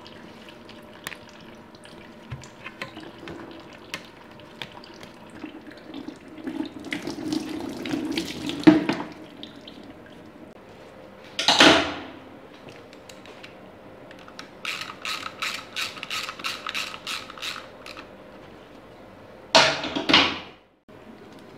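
Fluid draining from a pulled-off engine hose into a plastic drain bucket, splashing and trickling, with a few loud splashes or clatters. A quick run of ticks, about four a second, comes a little past the middle.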